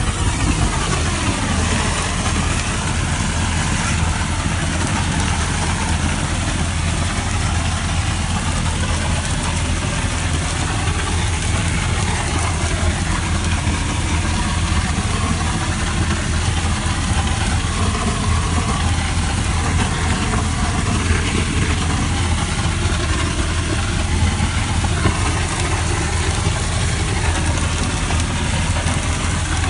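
Gunite being shot through a hose nozzle: a steady hiss of compressed air driving dry-mix concrete out of the nozzle, over the constant drone of the engine-driven air compressor.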